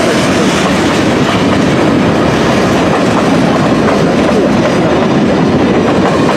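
A CN mixed-freight manifest train's cars rolling past close by, a steady, loud rumble and rattle of wheels on the rails.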